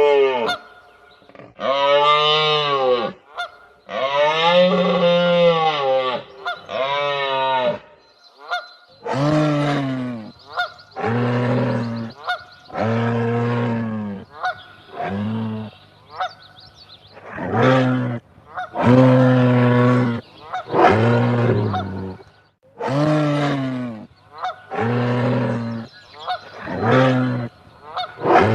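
A long run of drawn-out honking calls, presented as a "moose goose" sound effect. Each call swells and falls in pitch, and the later calls are deeper and lower.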